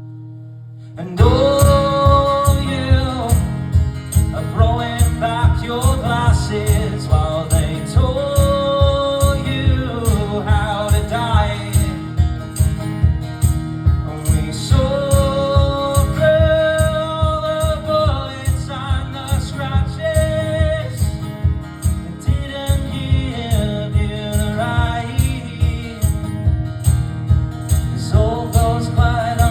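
Live acoustic folk-style music with a steady, even beat and a sustained, bending melody line over it, an instrumental passage between verses of the song. It comes in loudly about a second in, after a brief lull.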